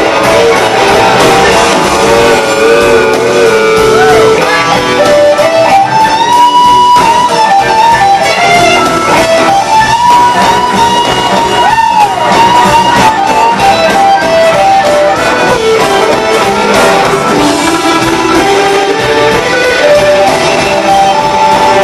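Live blues-rock band, with an electric guitar playing a lead line of long held, bent and sliding notes over drums and bass.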